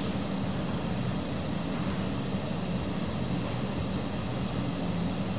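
Steady low-pitched hum of background room noise, with no speech.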